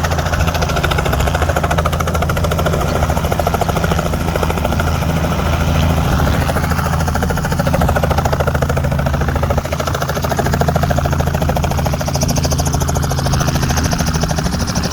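Tour helicopter running close by: its rotor blades beat in a fast, steady chop over a constant low engine hum.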